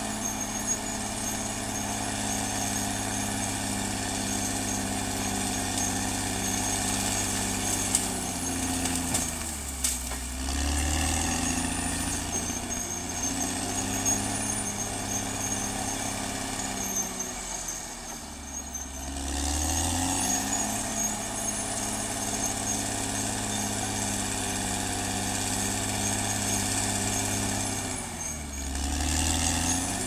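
Caterpillar D6R XL bulldozer's diesel engine running at working speed, with a steady high whine above the engine note. Three times the engine speed sags and then picks back up.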